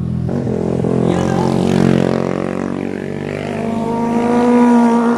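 Motorcycle engines running as bikes pass close through a bend, the engine note getting louder near the end as a sport bike comes through and accelerates.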